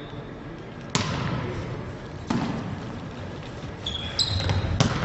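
Volleyball rally in an echoing sports hall. A sharp hit on the ball comes about a second in, which is the serve, and another hit follows about a second later. Near the end come brief high squeaks and a quick run of further ball contacts.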